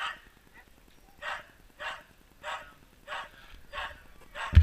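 Sled dogs barking at a steady rhythm, about one bark every 0.6 s, with a loud thump at the very end.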